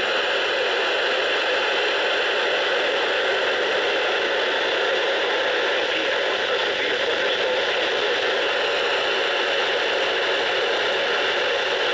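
Steady loud static hiss from a weather radio receiver, unchanging throughout: the alert broadcast has dropped out to noise.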